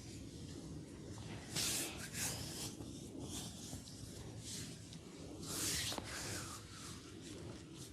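Hands rubbing and sliding over skin in a massage: soft, hissy swishing strokes, with a louder swish about a second and a half in and another about two-thirds of the way through.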